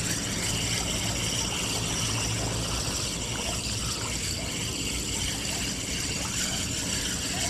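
Calm sea water sloshing and trickling steadily around a person wading chest-deep.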